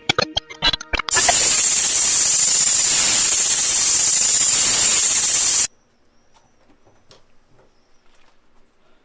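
Choppy electronic blips and clicks, then a loud, even burst of white-noise static like a television between channels. The static starts suddenly about a second in and cuts off abruptly some four and a half seconds later, leaving faint background with a few small ticks.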